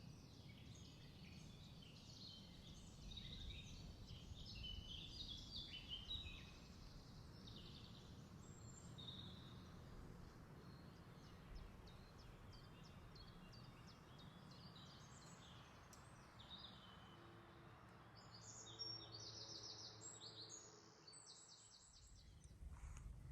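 Faint birdsong: small birds chirping over a low, steady background noise, with a few quick repeated trills near the end.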